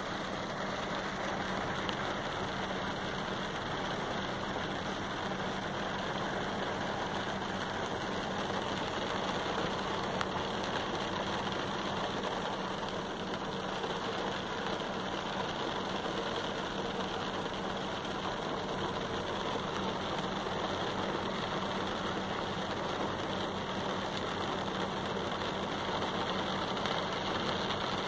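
Heavy rain falling on a car's glass sunroof, heard from inside the cabin as a steady, dense patter, with a steady low hum underneath.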